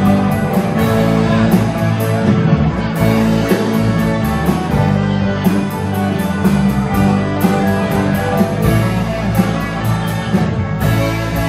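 A live rock band playing an instrumental passage: electric guitars over a drum kit, with a steady beat of cymbal strokes.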